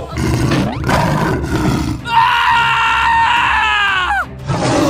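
Dinosaur roar sound effects over background music: a long held roar starting about two seconds in that falls in pitch as it ends, with another roar beginning near the end.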